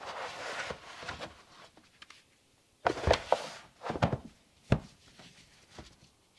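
Chaco ZX2 sandals being handled: a rustling scrape as they are lifted out of the cardboard box, then knocks as the rubber soles are set down on a table, a cluster about three seconds in, more around four seconds and a sharp single knock just before five seconds.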